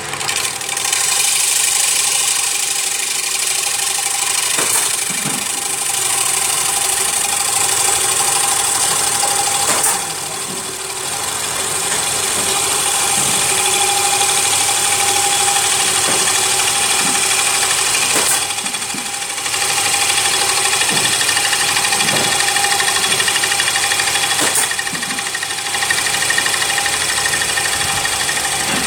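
CNC wood lathe running while turning a wooden plate. Its drive hums steadily with a strong hiss over it. The sound dips briefly about ten seconds in and again a little before twenty seconds.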